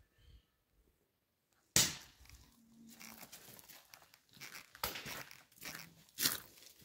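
Footsteps crunching over dry leaves and debris, with irregular rustling, starting suddenly a little under two seconds in.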